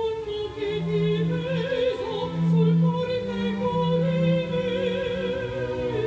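A woman's operatic voice holding long, sustained notes with a wide vibrato over an orchestra, with low strings playing long notes beneath.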